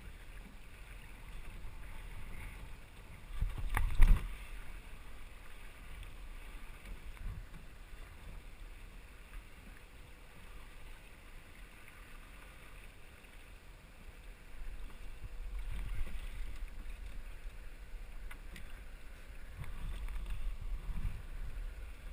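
Water washing along the hull of a small sailboat under way, with wind buffeting the microphone in low rumbles that swell a few times. About four seconds in comes a loud knock with a thump, the loudest sound here.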